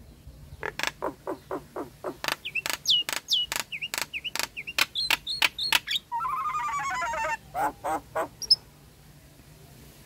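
Nias hill myna calling: a fast run of sharp clicking notes, about four a second, some ending in short whistled curls, then a harsh buzzing rattle about a second long and a few last notes before it stops.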